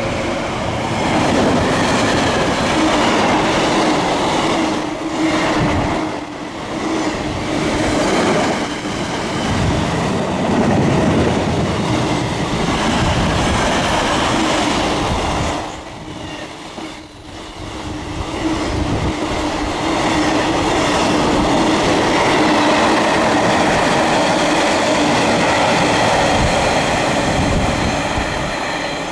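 Intermodal container freight wagons rushing past at speed: loud, continuous wheel-on-rail running noise with clatter from the bogies. The sound dips briefly about halfway through and eases off near the end.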